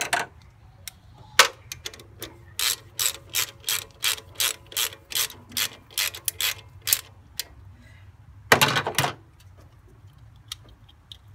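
Hand socket ratchet clicking as it tightens a bolt at the alternator, a steady run of about three ratcheting strokes a second, then a longer, louder rattle about eight and a half seconds in.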